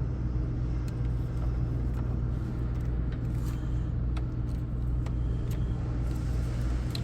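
Steady low machine hum with a few faint clicks and taps from wiring connectors being handled.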